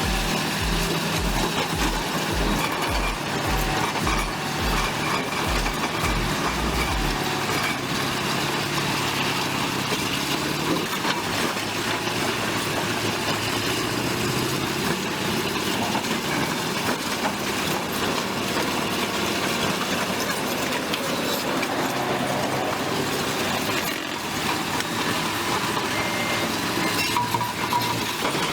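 Large bulldozer's diesel engine working under load, with a regular low thumping about twice a second that stops about seven seconds in.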